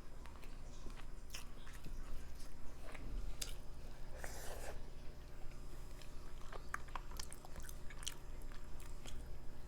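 Close-miked chewing of a mouthful of Indian food, with wet mouth clicks and smacks scattered through, and a brief louder swish about four seconds in.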